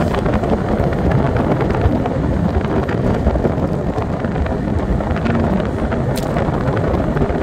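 Wind buffeting the microphone of a phone carried on a moving scooter: a steady, low rushing noise with no break.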